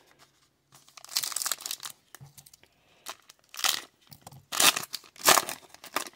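Foil trading-card pack wrapper being torn open and crinkled by hand: a longer tear about a second in, then three short, sharp crinkles.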